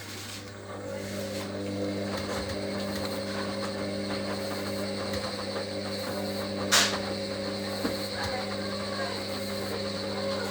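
Hoover HLW585DC washer-dryer draining before its final spin: a steady mechanical hum, with a higher whine joining about a second in. One sharp click comes a little past the middle.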